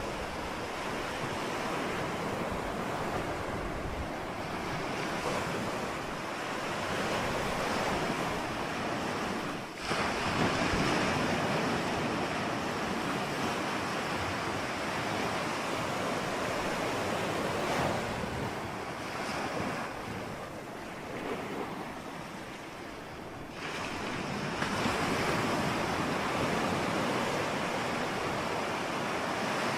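Ocean surf: waves breaking and washing in as a continuous rushing noise that swells and eases. The sound shifts abruptly about ten seconds in and again about fourteen seconds later.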